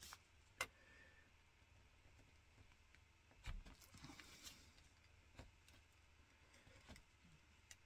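Near silence, with a few faint clicks and taps as a craft knife cuts the end off a small plastic eye-drop bottle, and a soft knock about three and a half seconds in.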